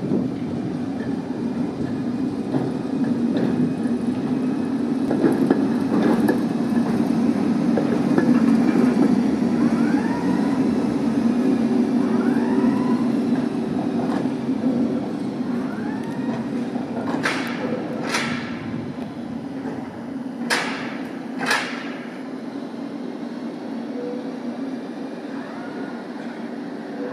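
Tatra T3 tram running slowly on street track, with a steady low rolling and motor noise. Midway its wheels squeal in short rising-and-falling tones on the curves, then four sharp clacks come in two pairs as the axles of its two bogies roll over a rail joint or switch.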